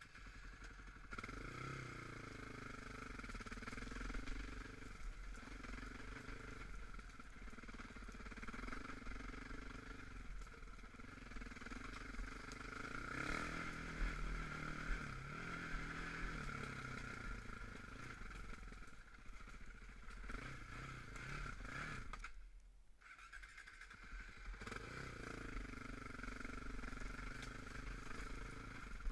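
Off-road vehicle engine running and revving unevenly on a rough trail, its pitch rising and falling with the throttle. The engine sound drops away for about two seconds near the end, then picks up again.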